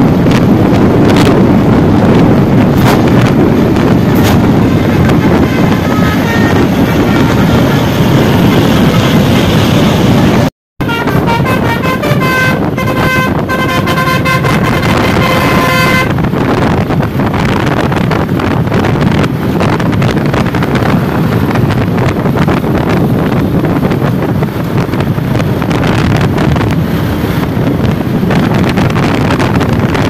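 Road noise of a coach and motorcycles passing. About eleven seconds in, a bus's multi-tone 'telolet basuri' air horn plays a quick tune of short notes for about five seconds, and then the road and wind noise carry on.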